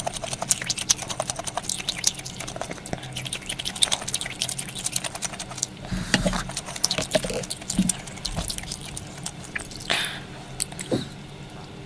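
A dense run of quick clicks and light taps, with small wet, liquid sounds: utensils and food being handled in a container of malatang broth.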